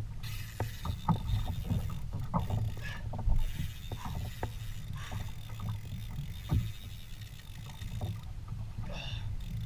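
Fishing kayak on open water: a steady low rumble of water and wind against the hull, with scattered short knocks and clicks from the boat and gear.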